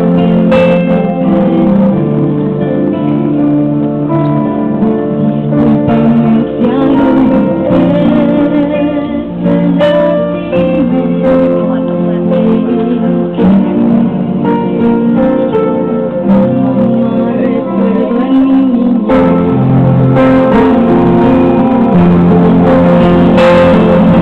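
A girl singing into a microphone over backing music with plucked strings, the voice and accompaniment coming through a loudspeaker system.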